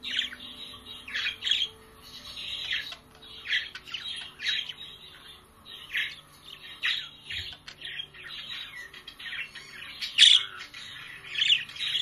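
Budgerigars (parakeets) chirping and chattering in short, rapid calls, several a second, with a louder squawk about ten seconds in.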